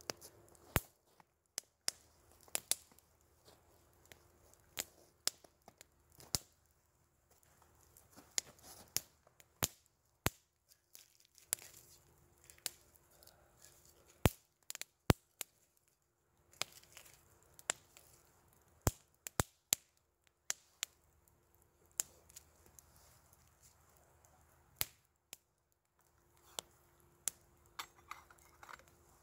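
Wood campfire crackling, with sharp pops at irregular intervals, roughly one to three a second, and soft rustling between them.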